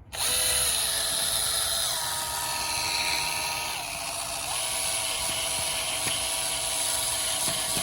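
Cordless drill motor whining under the trigger, driving screws. It starts and stops abruptly, and its pitch steps down a few times and back up once about halfway through as speed and load change.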